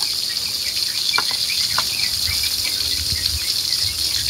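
Stone pestle crushing and grinding salt in a stone mortar (ulekan and cobek), with a few short knocks of stone on stone, over a steady high hiss.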